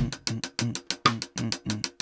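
A single drumstick playing even strokes on a snare drum, about six a second, in groups of seven with the first stroke of each group accented.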